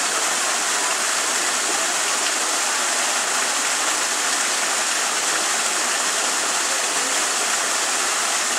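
Steady rushing noise, like running water, holding an even level throughout.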